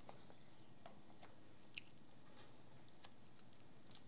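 Hobby knife blade scraping and cutting through tape on the case of a portable TV: faint, scattered scratchy clicks at irregular moments.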